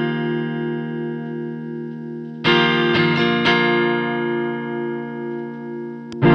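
Mayones Legend T22 electric guitar chords ringing out through an effects chain, with a fresh chord struck about two and a half seconds in and a few quick notes picked after it. Near the end the footswitch of a Fairfield Circuitry Shallow Water vibrato pedal clicks as the pedal is switched on.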